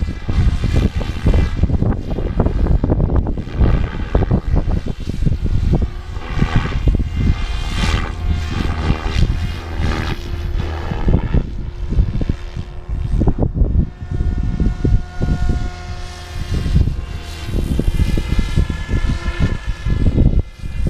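SAB Goblin 570 electric RC helicopter flying, its rotor and motor whine rising and falling in pitch as it moves about the sky. Gusty wind buffets the microphone underneath.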